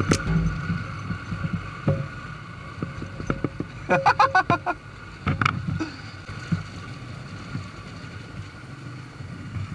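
Yamaha YBR125G's single-cylinder four-stroke engine running at low speed as the bike creeps over a rough dirt and stone lane, with scattered clicks and knocks and a short flurry of sharp sounds about four seconds in.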